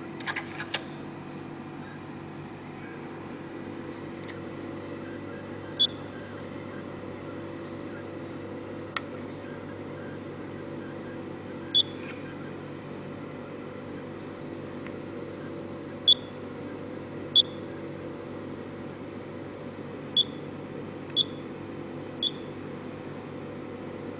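Tokheim outdoor payment terminal: a few clicks as a card goes into the reader, then seven short high beeps, one per touchscreen press, spaced a few seconds apart with a quicker run of four near the end as the PIN is keyed in. A steady low hum runs underneath.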